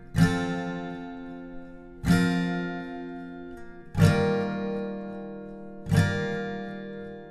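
Background music: slow acoustic guitar chords, one strum about every two seconds, each left to ring and fade.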